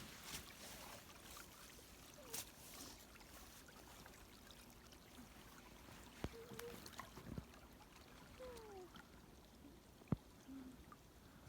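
Near silence: faint outdoor hiss with a few scattered small clicks and one sharp tick about ten seconds in.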